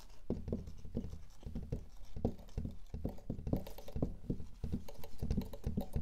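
Irregular light taps and knocks of writing or drawing on a board, several a second.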